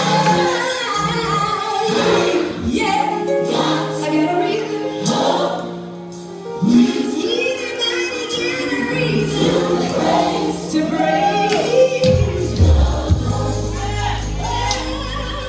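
Gospel song with a choir singing long, gliding lines over held bass notes; a deeper bass note comes in about twelve seconds in.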